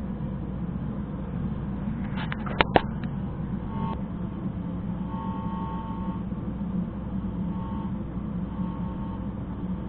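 Audi A4 idling with a steady low hum. Two sharp clicks come about two and a half seconds in.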